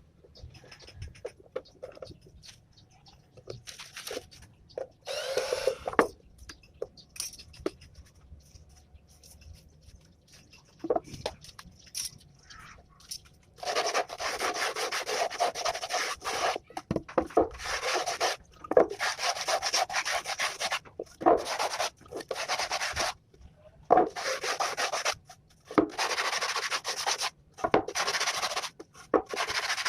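Sandpaper rubbing on plywood in long stretches of strokes broken by short pauses, starting about halfway through. Before that there are only scattered small handling noises and one brief scrape about five seconds in.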